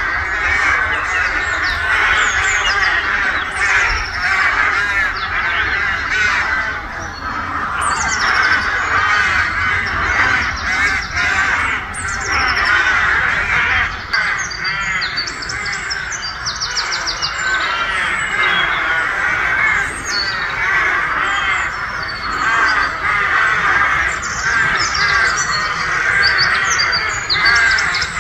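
A nesting colony of rooks cawing all at once: a continuous clamour of many overlapping harsh calls, with some higher chirps among them.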